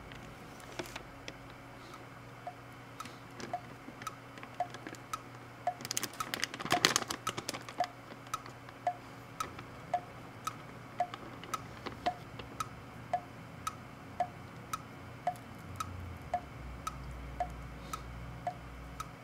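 A soft, even tick-tock, about two ticks a second alternating between two pitches. About six seconds in there is a short burst of crinkling as a foil-lined bag of dried beef steak strips is torn open.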